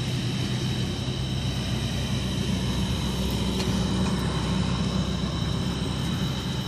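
Steady low engine hum and rumble of vehicles on the interstate, with a thin high steady whine above it.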